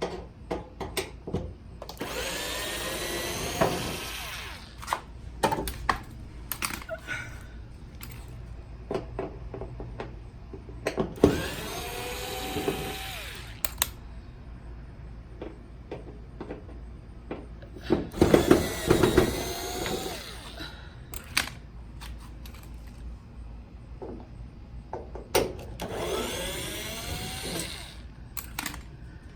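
Power driver backing out the back-cover screws of a Samsung LED TV, in four runs of a few seconds each, its motor whine gliding up and down in pitch. Small clicks and knocks come between the runs.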